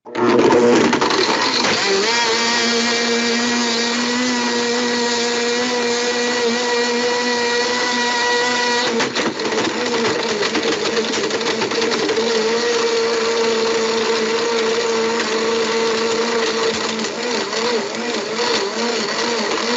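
Countertop blender motor switching on abruptly and running at full speed with a steady whine, grinding up a cell phone in its jar. About nine seconds in, the tone shifts, and near the end it wavers.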